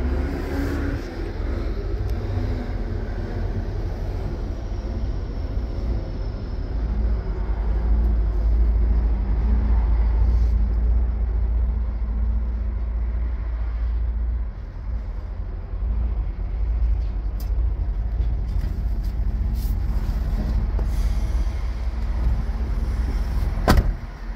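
Steady low rumble with a faint steady hum in the cab of a Freightliner Cascadia truck, then a single sharp knock near the end.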